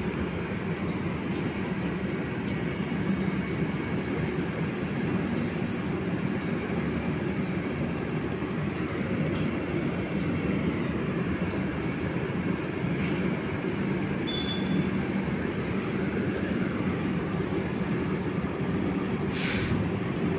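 LHB air-conditioned passenger coaches rolling past on the near track: a continuous, even rumble of wheels on rail.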